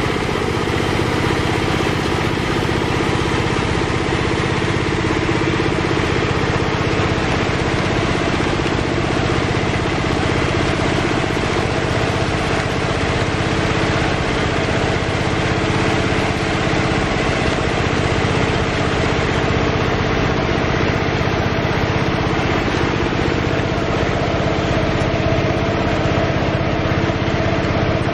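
Small engine running steadily at an even speed, driving a fish-feed machine that presses feed out into a pond.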